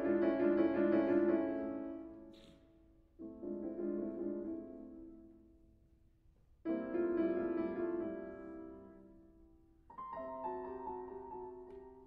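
Slow solo piano music: sustained chords, each struck and left to ring and fade, a new one about every three seconds.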